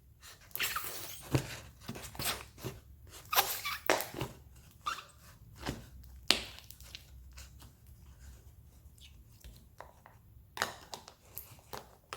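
Slime being squished and stretched by hand, giving irregular sticky crackles and squelches, busiest in the first six seconds and again near the end.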